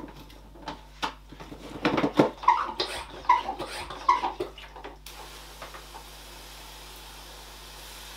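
Hand-pump garden pressure sprayer: knocks and a few squeaky strokes of the pump handle, then from about five seconds in a steady hiss of water spraying from the wand onto dry soil substrate.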